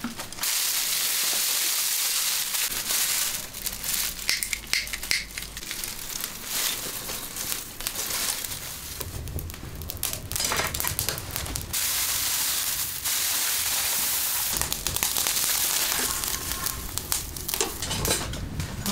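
Dry straw rustling and crunching as it is handled and pushed into the firebox of a wood-fired brick stove, with the fire crackling, many irregular crackles and snaps over a hiss.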